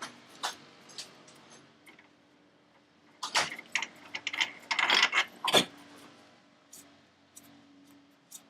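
Metal tools and parts clinking and clattering during hand work on a car's wheel hub. There are scattered single clicks, then a quick, loud run of clanks in the middle.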